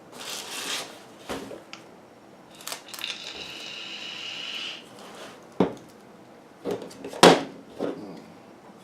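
Medical supplies handled and packed into a kit on a tabletop: rustling of packaging, a steady hissing scrape for a couple of seconds, then several sharp clicks and knocks, the loudest about seven seconds in.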